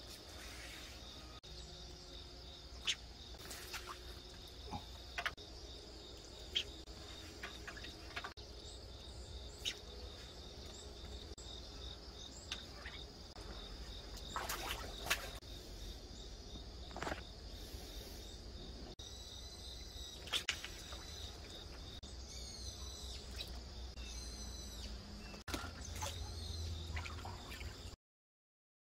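Steady chirring of insects, with scattered sharp clicks and knocks and a low rumble underneath. Bird chirps come in over the second half.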